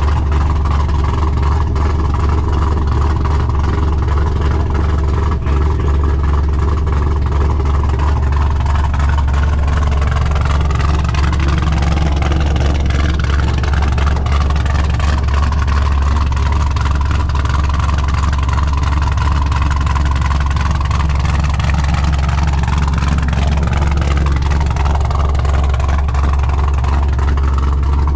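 A car engine running steadily, loud and deep.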